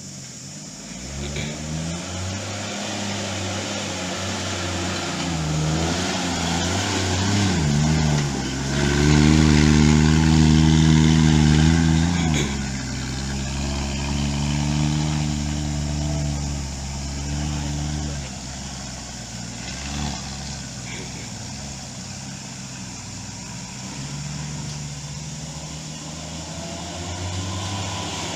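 Engine of an off-road Toyota Land Cruiser hardtop running under load, revving up about a third of the way in, running loudest for a few seconds, then easing back and rising and falling in pitch.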